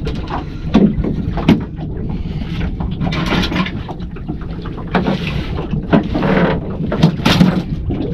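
Wind on the microphone and water washing against the hull of a small open fishing boat, with a few sharp knocks early on deck and several rushing, rustling bursts as the angler handles a freshly landed fish.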